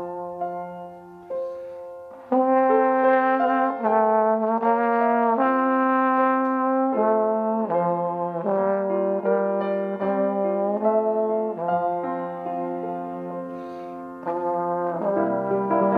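Trombone playing a melody of held notes, going softer shortly after the start and again about three-quarters of the way through.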